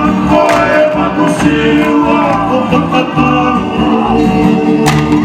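Music with group singing, including men's voices, over a steady beat: the song accompanying a Tongan mako dance.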